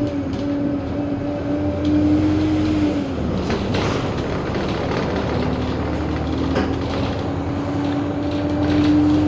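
Bus interior while under way: a low engine hum with a steady whine that drops away about three seconds in, is gone for a couple of seconds, then returns and climbs slightly in pitch as the bus picks up speed.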